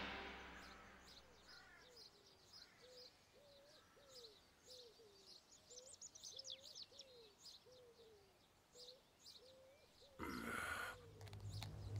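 Faint birdsong: quick high chirps over a repeated series of lower, rising-and-falling whistled notes. A louder, noisier sound comes in near the end.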